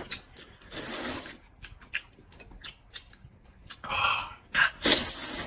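People eating: short slurps and chewing sounds, with scattered light clicks of utensils against bowls.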